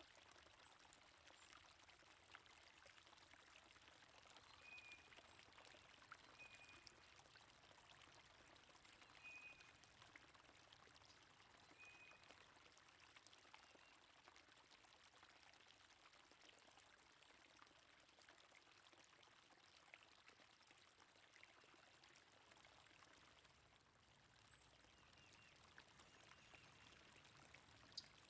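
Faint steady rush of flowing stream water, with a bird giving a few short high chirps, four of them spaced a couple of seconds apart in the first half.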